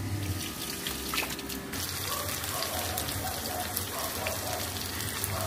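Water poured from a mug splashing down over a child's body into a bucket, then, a little under two seconds in, fish sizzling and spitting as it fries in oil in a pan.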